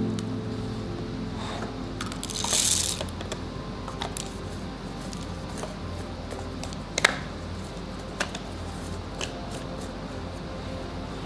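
Coffee beans and a manual coffee grinder being handled: a short rattle of beans about two and a half seconds in, then light clicks and one sharp click about seven seconds in as the glass catch cup is fitted to the grinder body, over a low steady hum.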